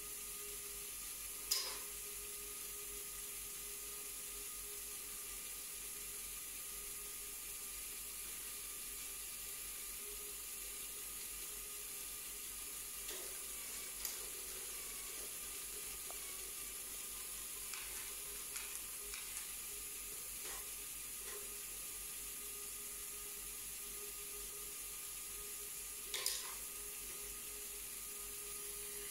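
Lego Technic Great Ball Contraption module running: a steady, faint motor whir with a hiss, broken by a few sharp clacks of plastic balls, the loudest about a second and a half in and near the end, with lighter ticks in between.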